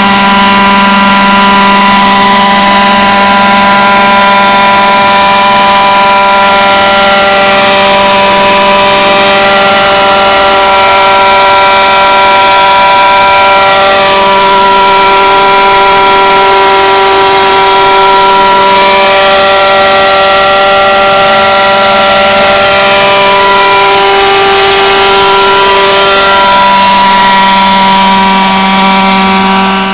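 Large-scale Vario Schweizer radio-controlled model helicopter, its engine and rotor running loud and steady at a nearly constant high pitch while it flies.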